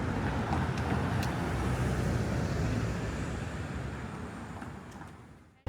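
Steady road traffic noise, a low rumble that fades away near the end.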